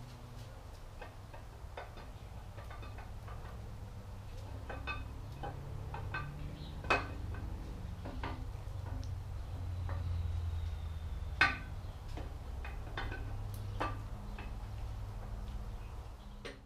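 Light metallic clicks and taps as a camshaft is worked into the cam bearings of a Ford 429 big-block V8, two of them sharper knocks about seven and eleven seconds in. A steady low hum runs underneath.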